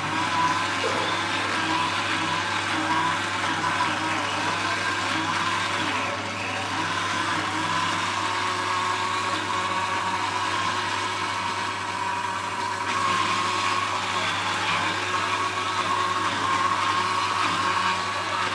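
Electric grinding machine running steadily, its motor humming at a constant pitch while it grinds a wet paste.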